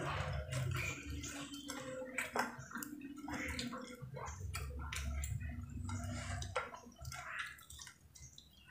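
Close-up eating by hand: fingers pressing and gathering rice against a glass plate, with small irregular clicks, wet mouth sounds and chewing.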